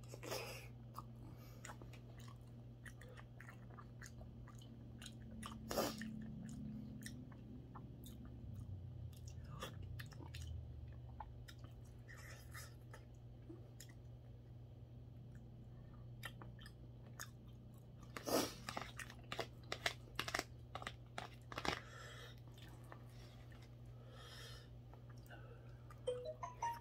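A person chewing and eating mackerel rice porridge from a metal spoon: soft mouth sounds with scattered short clicks, thickest about eighteen to twenty-two seconds in. A steady low hum runs underneath.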